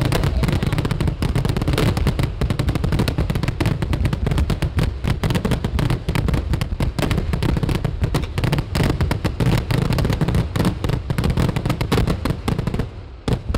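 Vedikettu fireworks barrage: a dense, rapid string of firecracker explosions whose cracks run together without a break. The barrage cuts off suddenly near the end, leaving one or two last bangs.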